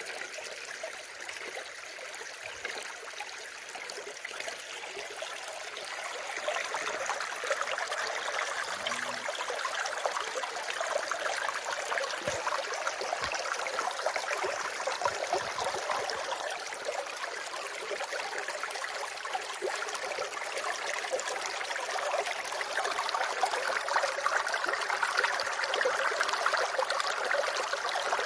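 Running water, a steady rushing trickle that grows louder about six seconds in and again near the end.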